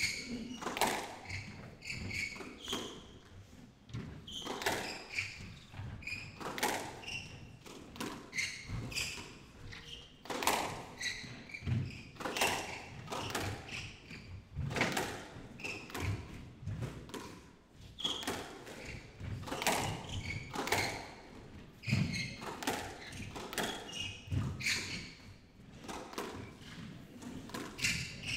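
Squash rally: the rubber ball struck by rackets and smacking off the front and side walls in an irregular run of sharp hits, with short squeaks of court shoes on the wooden floor between strokes.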